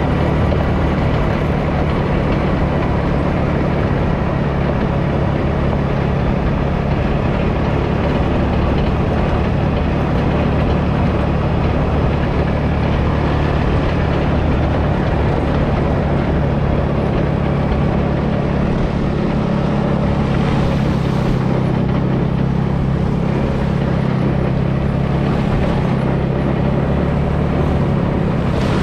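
Dune buggy engine running at a steady pace while driving, a constant low drone under wind and tyre noise.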